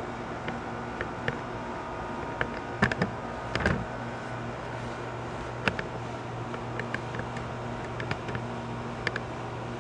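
Camera handling noise: scattered light clicks and taps at irregular spacing over a steady hum, with a lower hum coming in about four seconds in.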